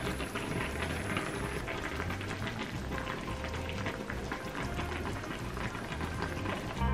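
Broth of water, chicken stock and bay leaves simmering around cabbage rolls in a stainless steel saucepan: a steady crackle of small bubbles popping.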